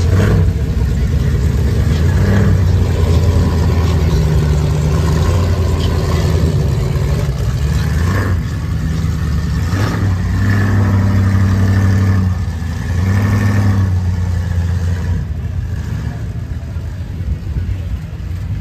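Diesel engine of a Ford F-350 mud truck revving hard and held at high revs in several long pulls while stuck in deep mud. The revs step up and down, and it eases off in the last few seconds.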